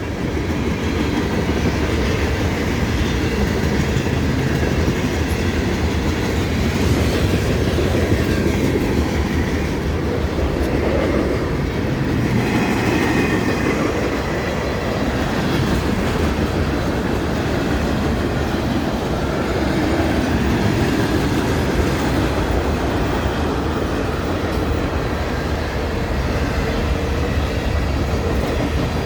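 A long freight train's cars rolling steadily past at moderate speed, the wheels running over the rails.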